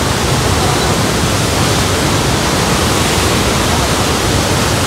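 Loud, steady roar of a fast-flowing river rushing over rocks in white-water rapids below a waterfall, with the flow running high.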